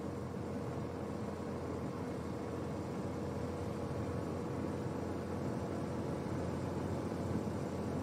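Steady engine hum and wind rush from the race broadcast's on-course sound, with a faint steady tone through it.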